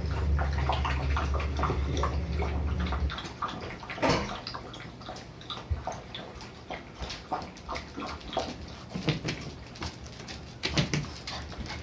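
Shiba Inu puppies scuffling: a fast, irregular run of small clicks and rustles, with one louder knock about four seconds in. A steady low hum runs under the first three seconds, then stops.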